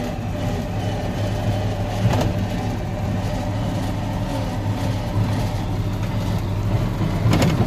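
Truck engine running steadily as the fuel tanker drives slowly along a rough dirt road, heard from inside the cab. There is a brief knock about two seconds in.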